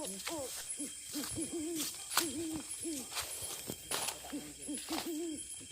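A run of short, hooting animal calls from the forest, each note quickly rising and falling, repeated irregularly many times. A faint high insect buzz runs underneath, with scattered sharp clicks.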